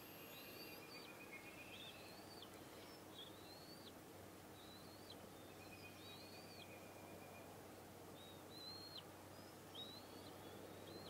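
Faint outdoor background with a bird repeating a short, high call about eight times, roughly once a second, and a few brief buzzy trills.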